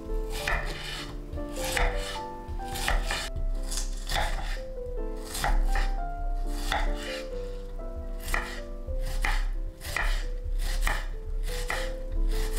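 Kitchen knife chopping an onion on a wooden cutting board: crisp, uneven knife strokes through the onion onto the board, about two a second.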